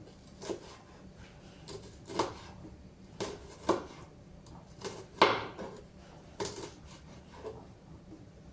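Kitchenware being handled: a series of irregular knocks and clatters, the loudest a little past halfway.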